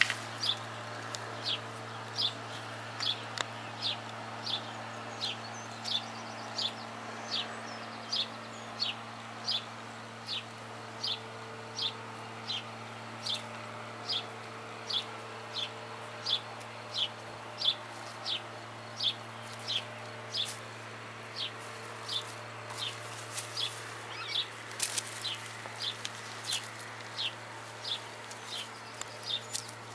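A small bird calling the same short, high, falling note over and over, evenly about twice a second.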